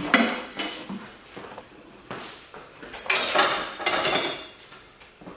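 Manual tire changer worked by hand: a metal clank as the bar and duckbill tool start to move, then about three seconds in a squealing metal-and-rubber scrape lasting over a second as the duckbill is dragged around the wheel rim, lifting the tire bead off.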